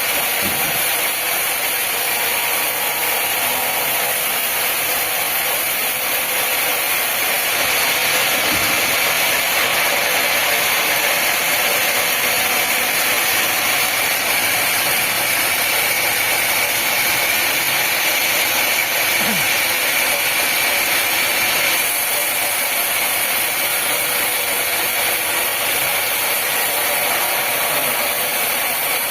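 Sawmill machinery running steadily, a continuous mechanical noise with a high whine and hiss that never pauses.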